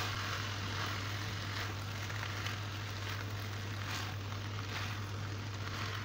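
Keema and boiled pasta sizzling gently in a nonstick frying pan while being stirred with a silicone spatula, with soft scrapes from the stirring every second or so, over a steady low hum.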